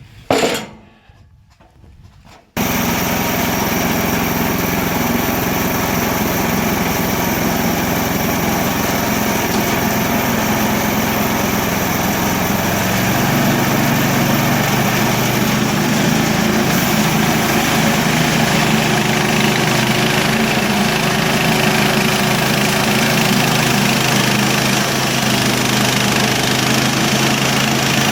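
Gasoline engine of a Harbor Freight portable bandsaw sawmill running steadily at speed. It comes in suddenly about two and a half seconds in, after a short loud sound, and its low note shifts about halfway through.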